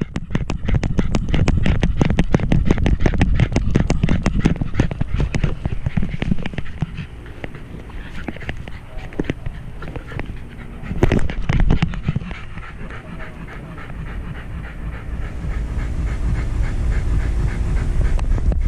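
Wire-haired fox terrier panting hard and fast, picked up very close by an action camera strapped to its harness. A louder knock comes about eleven seconds in.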